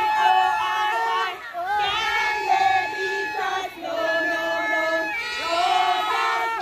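A crowd of voices, children's among them, shouting and chanting together in long, drawn-out calls that rise and fall in pitch.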